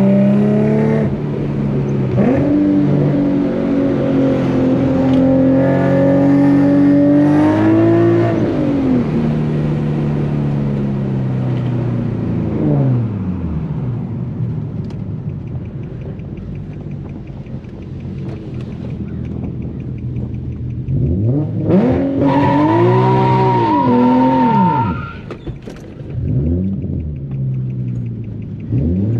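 Infiniti G37's 3.7-litre V6 through an ISR Single Exit GT exhaust, accelerating, its pitch climbing and then dropping off several times. A quieter steady stretch in the middle gives way to a quick run of revs rising and falling about three-quarters of the way through.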